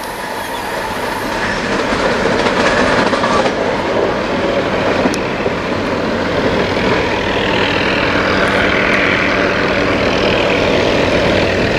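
Amtrak passenger train moving away down the track: a steady, loud rumble and clatter of wheels on rail, with a faint low hum coming in during the second half.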